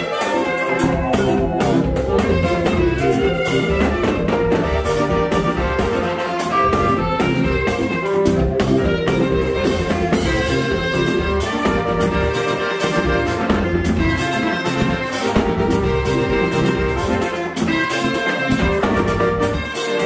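Lively music from a church praise band with guitars and drums, with a steady beat.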